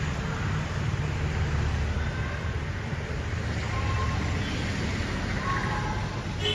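Steady low rumble of road traffic, with a few faint brief tones near the middle and end of the stretch.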